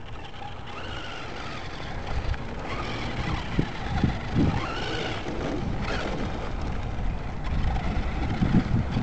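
Onboard sound of an electric RC short-course truck driving over rough asphalt: the motor's whine rises and falls with the throttle over a heavy rumble of tyres and wind on the truck-mounted camera, with several knocks from bumps in the surface.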